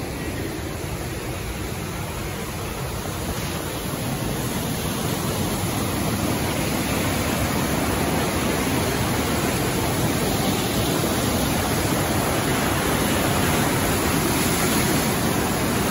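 A swollen forest river rushing over boulders in whitewater: a steady roar of water that grows louder about five seconds in, then holds.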